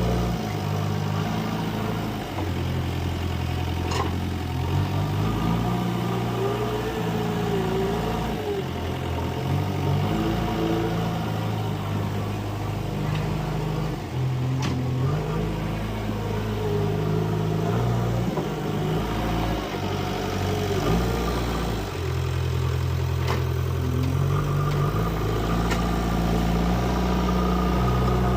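JCB 3DX backhoe loader's diesel engine running continuously, its speed stepping up and down as the hydraulics work. A few sharp knocks are heard along the way.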